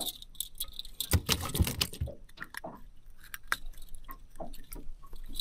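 Metal fish-stringer clips jangling, a run of quick small clicks and knocks as the stringer of crappie is handled.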